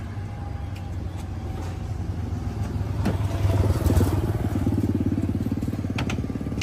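A motor vehicle engine running close by with a steady pulsing hum, growing louder to a peak about four seconds in and easing slightly after. A couple of sharp plastic clacks as cooler lids and boxes are handled.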